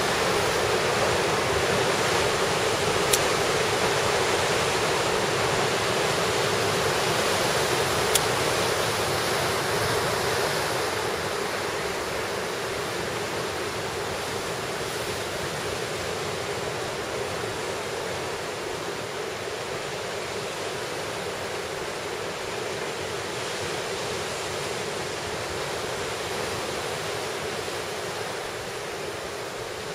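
Steady rushing of sea surf and wind, growing quieter after about ten seconds and fading near the end, with two brief faint ticks about three and eight seconds in.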